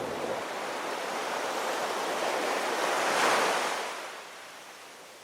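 A rushing noise that swells to a peak about three seconds in, then fades away.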